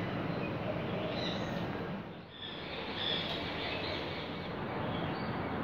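Steady outdoor background noise with birds chirping now and then in short high calls. The level dips briefly a little past two seconds in.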